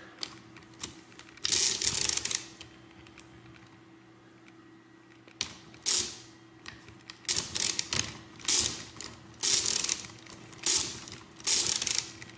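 Facit TK pinwheel mechanical calculator being worked by hand, its gears and carry levers ratcheting in short clattery bursts, which come about once a second in the second half.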